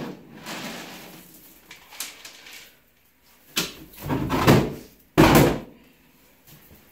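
Clattering and knocking as a plastic feed bin and a metal dog bowl are handled while dog food is scooped. About five seconds in comes the loudest sound, a sudden bang from the bin's plastic lid being shut.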